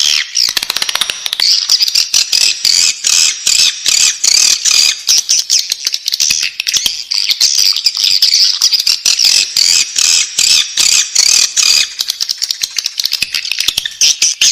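Swiftlet chicks calling in the nest: a dense, unbroken chorus of rapid, high-pitched chirping and squeaking.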